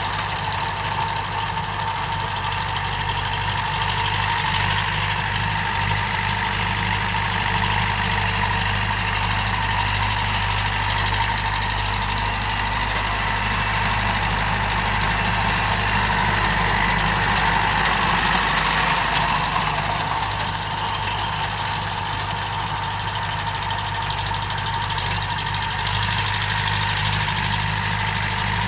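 TAFE 5900 DI tractor's diesel engine running steadily under load as it pulls a working rotary tiller through the soil.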